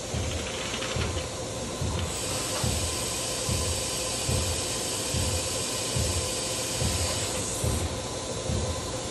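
Roders RXU1000DSH five-axis machining center running, with a steady hiss. A high whine comes in about two seconds in and stops near the end. Under it, a low pulse repeats a little faster than once a second.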